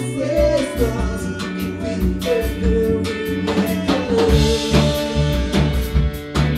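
Live rock band playing a song: a drum kit keeping a steady beat under singing and amplified instruments.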